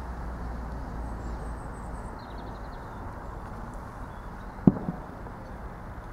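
Steady low outdoor rumble with a single sharp knock about three-quarters of the way through, and a few faint bird chirps.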